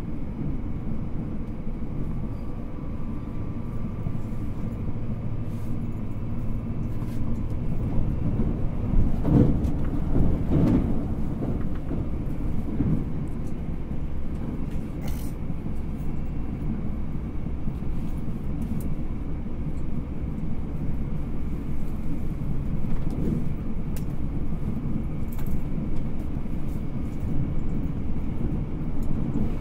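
Cabin running noise of a JR Hokkaido 789 series 1000 subseries electric limited-express train, heard from inside a motor car between stations: a steady low rumble of wheels on rail. The rumble swells briefly about nine to eleven seconds in.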